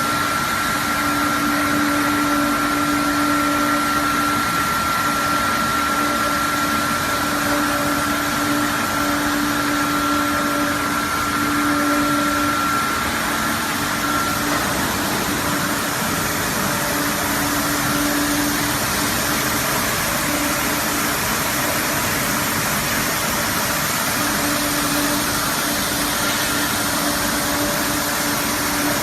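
Automatic bottle washing machine running: a steady hiss with a steady motor hum, plus a higher whine that fades out about halfway through.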